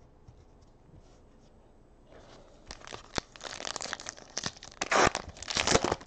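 Foil trading-card pack being torn open by hand: crinkling of the wrapper and a run of sharp rips starting about two and a half seconds in, the loudest rips near the end.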